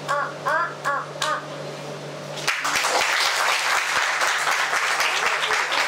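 A child's voice calls out a few short syllables, then about two and a half seconds in an audience starts clapping and keeps up steady applause.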